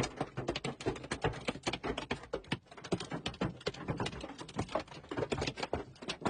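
Hail pelting a car's windshield and roof, heard from inside the car: a dense, irregular clatter of sharp hits, many each second.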